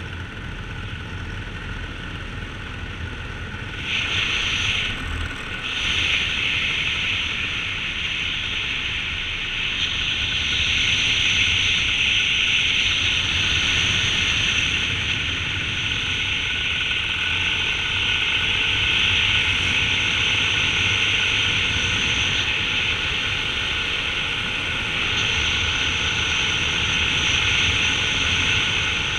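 Paramotor engine and propeller droning steadily in flight, mixed with wind rushing over the microphone.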